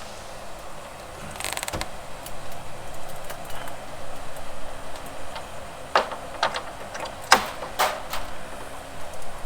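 Metal clicks and knocks from a motorhome's front hood latch mechanism being worked: a short rattle about a second and a half in, then several sharp separate clicks near the end.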